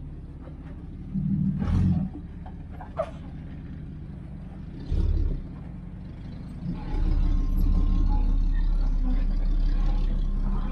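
Off-road 4x4's engine revving in short bursts, then held at a steady, heavier load for the last few seconds.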